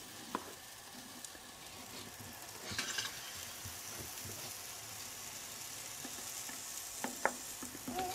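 Waffle batter sizzling faintly as it is poured into a hot, oiled cast-iron waffle iron, with a few light clicks scattered through.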